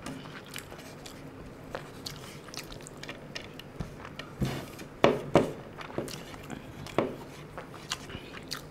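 A person eating rice by hand close to the microphone: fingers scraping across a plate and chewing, heard as scattered small clicks and smacks, with a few louder ones about halfway through and again about a second and a half later.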